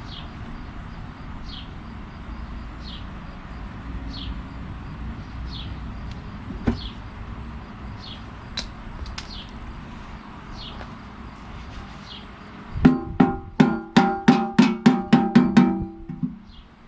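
Steady background noise with a faint high chirp repeating about every second and a half. Near the end comes a run of about a dozen sharp, ringing strikes that speed up, the loudest sound here.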